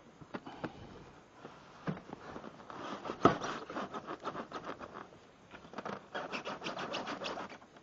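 Scraping, rubbing and rustling of box packaging as a heavy miter saw is worked loose, with scattered clicks and one sharp knock about three seconds in.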